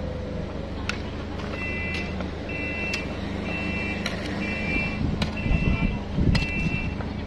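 Forklift reversing alarm beeping about once a second, starting a couple of seconds in, over the steady running of its engine. A few sharp knocks are heard.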